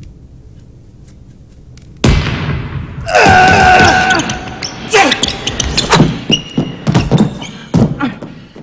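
One-on-one basketball play: the ball bouncing and thudding on the court with short sneaker squeaks, starting suddenly about two seconds in. A loud drawn-out sound comes about a second later.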